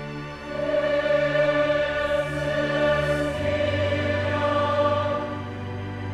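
A large choir singing long held chords with a string orchestra, swelling louder about half a second in.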